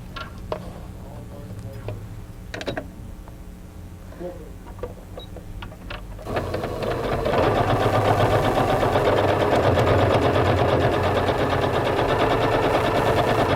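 Singer 7466 sewing machine stitching a jeans hem, starting about six seconds in and running steadily through to the end. It goes up and over a seam of nine layers of denim without labouring. Before it starts there are a few light clicks.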